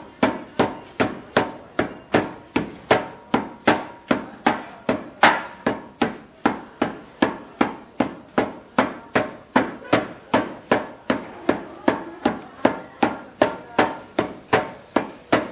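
Wooden mallets pounding a sheet of peanut candy on a metal plate, making a steady fast run of thuds, about three blows a second.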